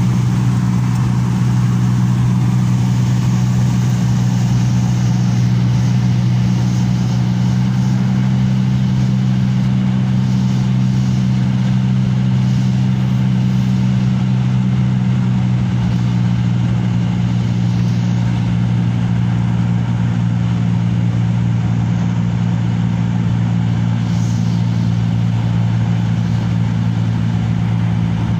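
A light aircraft's engine and propeller drone steadily, heard from inside the cabin. The tone shifts slightly about halfway through.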